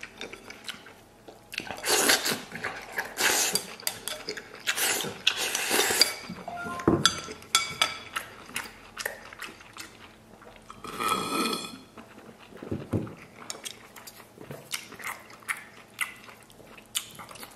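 A person chewing braised pork intestines close to the microphone: wet, irregular chewing and mouth sounds with scattered sharp clicks.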